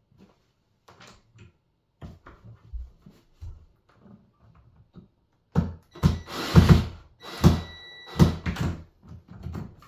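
Door handle set being fitted and worked on a door: scattered small knocks of metal parts, then a busy run of loud clicks, rattles and knocks from about halfway through.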